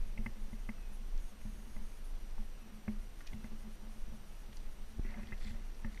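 Footsteps of a person walking along a wooden boardwalk onto a path, irregular knocks and thuds over a steady low rumble.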